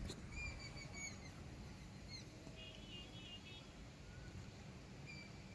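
Faint bird chirps, a few short calls in the first second and a quick run of them around the middle, over a low steady rumble of wind.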